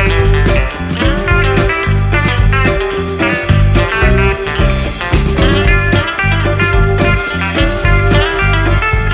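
Background music led by guitar, with a steady beat and heavy bass.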